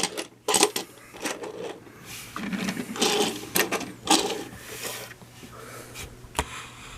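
Plastic toy train engines and cars being handled and set down, with irregular clicks, knocks and rattling.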